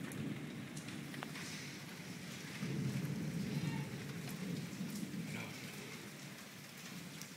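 Steady rain with a low rumble of thunder, which swells about two and a half seconds in and fades over the next few seconds as the storm dies down.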